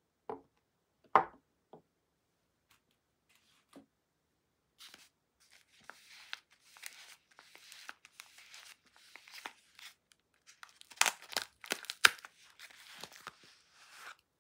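Paper wrapper of a bar soap crinkling and tearing as it is unwrapped by hand, with the sharpest rips about eleven and twelve seconds in. A few short knocks near the start come from soap bars being handled.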